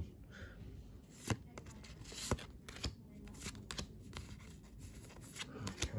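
Pokémon trading cards being flipped through by hand, cards sliding and flicking off the stack with short, soft clicks and rustles at irregular intervals.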